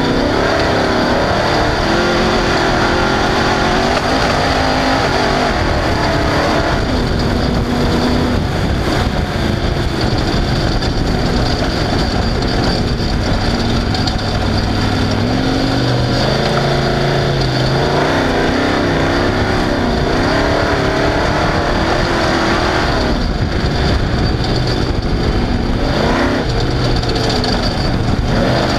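Off-road race car engine running hard, its revs rising and falling again and again over a loud, steady rush of mechanical and driving noise.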